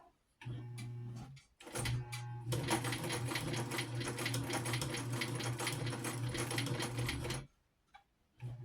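1960 White sewing machine stitching, a steady hum under a fast even clatter of the needle, stopping and starting again a few times. The machine is unoiled and still has a stiff spot.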